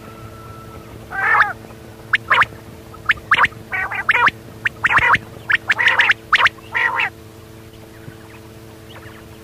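Quail calling: a string of short, sharp calls, some in quick runs, from about a second in until about seven seconds in, over a steady low hum.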